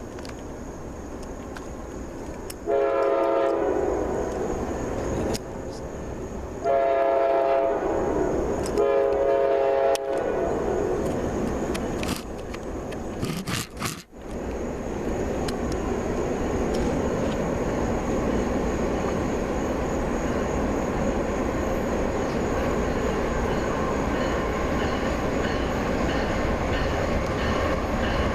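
Diesel locomotive horn sounds three blasts, the first one long and the next two shorter. Then, after a short break, comes the steady rumble and rattle of a train rolling past, growing louder.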